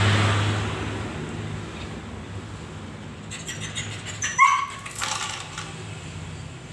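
Dog giving one short, high yip about four seconds in during a play-fight, after a few light clicks. A steady low hum runs underneath.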